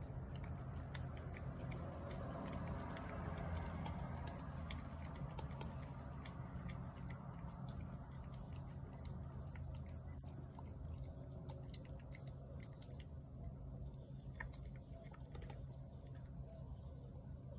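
Feral tabby cat eating wet cat food from a plate: a steady run of small, quick, wet clicks and smacks of chewing and lapping. A steady low hum sits underneath.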